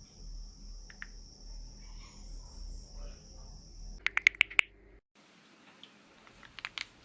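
Knuckles cracking as a clenched fist is squeezed: a quick run of about six sharp pops about four seconds in, then a few fainter pops near the end. A steady high-pitched whine sits under the first part and stops just as the pops begin.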